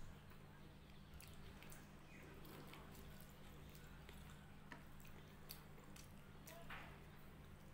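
Faint, soft squishing and small clicks of fingers mixing and mashing rice with dal on a plate, over a steady low hum.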